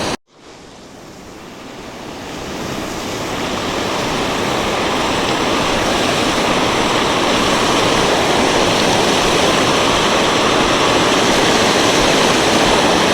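Waterfall rushing, a dense, steady roar of falling water that fades in over the first few seconds.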